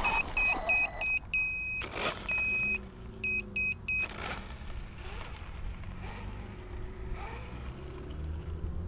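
A run of high electronic beeps in an irregular pattern, several quick short beeps and then a few longer ones, stopping about four seconds in, over a low steady engine hum.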